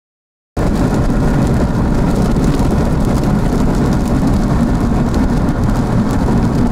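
Strong wind buffeting the microphone, a loud, steady, rough rumble that cuts in abruptly about half a second in.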